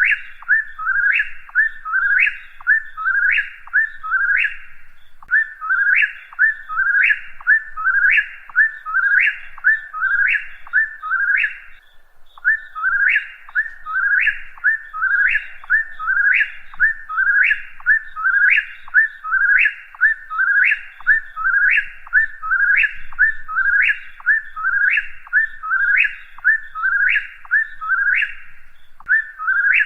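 Whip-poor-will singing its song over and over, a steady run of quick whistled three-part phrases, each ending in a sharp upward sweep, at about one phrase a second, with one short pause near the middle.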